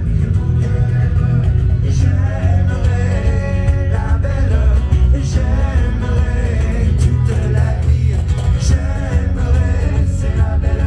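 Live band playing through a loud outdoor PA: a singer over guitar and a heavy bass.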